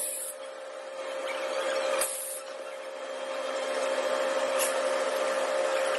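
Laser welding machine running with a steady hum and hiss. Short high hissing bursts come at the start and about two seconds in, and a sharp click comes later on.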